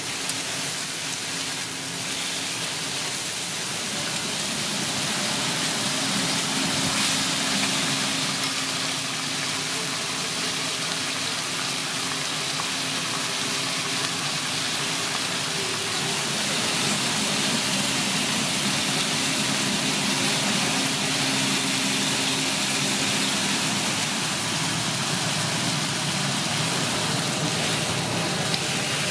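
Chicken pieces and onion rings sizzling on a flat-top griddle, a steady hiss, with a faint low hum underneath.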